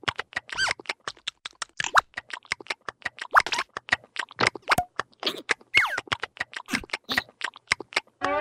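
Cartoon larva characters' vocal sound effects: a rapid run of clicks, about five a second, with short squeaky pitch glides mixed in; near the end a rising pitched glide begins.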